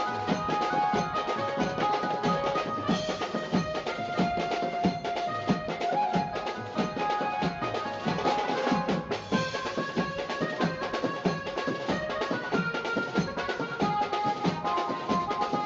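Background music with a melody over fast, steady drumming.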